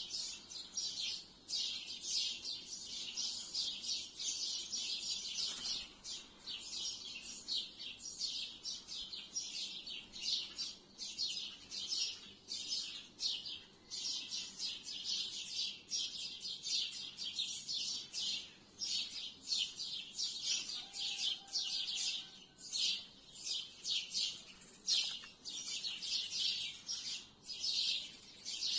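A flock of sparrows chirping in trees, a dense continuous chatter of many short overlapping chirps from many birds at once.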